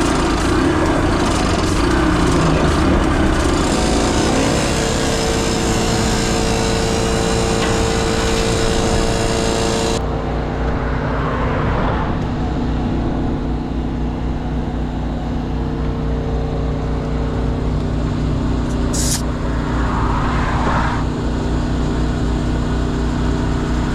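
An engine running steadily, with a loud hiss over it that cuts off abruptly about ten seconds in. A brief high squeak comes near the end.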